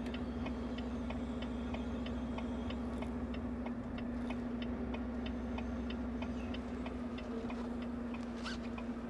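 Inside a semi-truck's cab: the engine runs at idle with a steady drone while something ticks in a quick, even rhythm, like a flasher relay.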